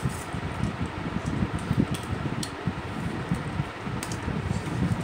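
Steady whir of an electric fan, with a few light clicks of a fork against a steel plate.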